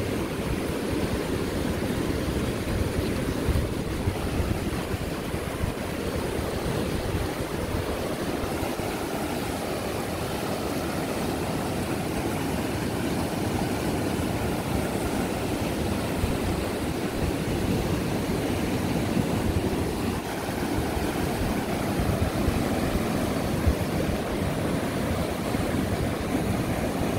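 Floodwater rushing and churning in a river swollen by typhoon rain: a steady, deep, loud rush of water.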